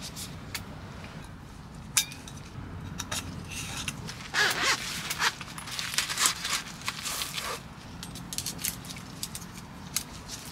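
Metal parts of a portable mini roaster grill clinking, knocking and scraping as it is unpacked and assembled. There is one sharp knock about two seconds in and a busier run of clatter in the middle, over a low steady hum.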